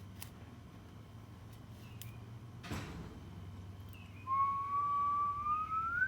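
A single long, clear squeak starting about four seconds in and rising slowly in pitch, after a short knock near the middle, over a low steady hum.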